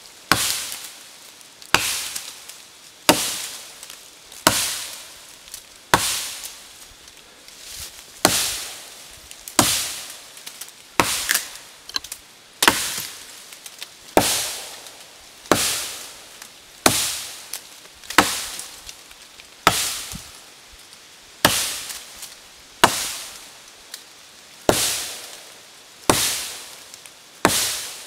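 Axe chopping into the trunk of a dead sugar maple, one sharp strike about every second and a half, a steady series of about twenty blows cutting the back cut to fell the tree.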